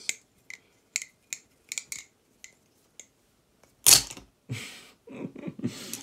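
Balisong trainer with freshly oiled pivots being flipped by hand: a run of light, sharp clicks as the handles swing and tap together, then one loud clack about four seconds in, followed by a brief rustle.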